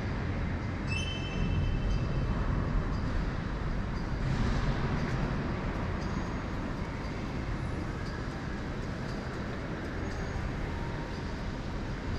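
Steady low rumbling background noise, with a brief high ringing tone about a second in.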